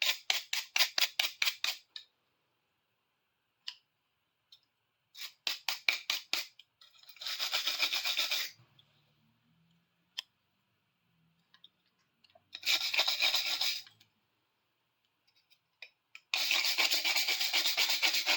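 A hand brush scrubbing rust and dirt off a pair of metal pliers. It goes in short runs of quick back-and-forth strokes, about five a second, and longer stretches of continuous scrubbing, with pauses between.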